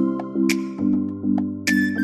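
Background music: a steady beat of low chords, about two a second, with bell-like high notes on top.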